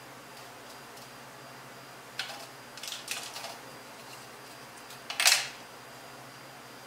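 Fruit and cinnamon sticks being set down and shifted on a stainless steel tray: a few light knocks and scrapes around two to three seconds in, then a louder clatter a little past five seconds.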